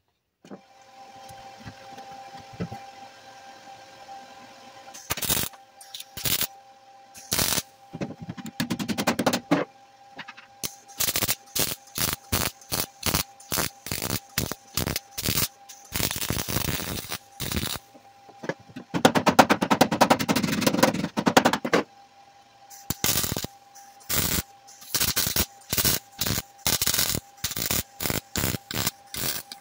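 MIG welder arc firing in short tack-and-stitch bursts as a sheet-steel patch panel is welded into a car's rear floor pan, with a few longer runs of one to three seconds near the middle and a quick string of short tacks near the end. A steady hum sits underneath, and for the first few seconds there is only that hum.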